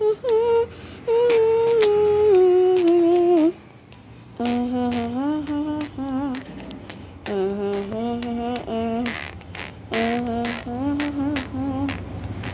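A person humming a wordless tune in held notes that slide from one pitch to the next, with a short break about three and a half seconds in. Scattered light taps and knocks are heard along with the humming.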